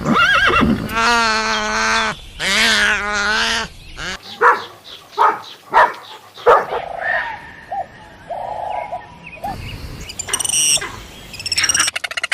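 A run of farm animal calls cut together: two long, wavering goat bleats in the first few seconds, then a string of short, sharp calls and several higher calls toward the end.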